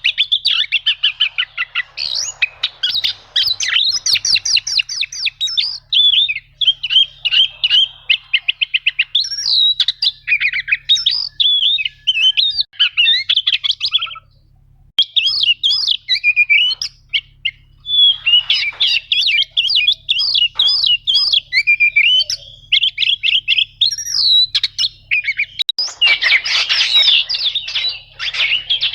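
Oriental magpie-robin (kacer) singing: fast, varied phrases of rapid repeated chirps and trills, with a short pause about halfway through.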